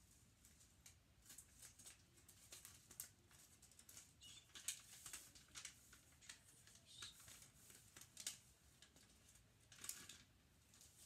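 Faint, irregular rustling and crinkling of gift-wrapping paper as it is handled and folded.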